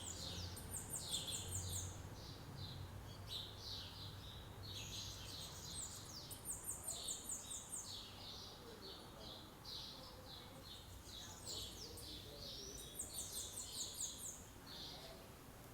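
Several wild birds chirping and singing, with short overlapping calls throughout. One bird gives a very high, rapid trill of about eight notes, three times: near the start, about midway and near the end.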